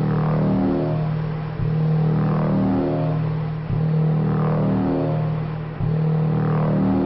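Electronic dance music: a held bass note under a rising sweep, the phrase repeating about every two seconds with a brief drop in loudness at each restart.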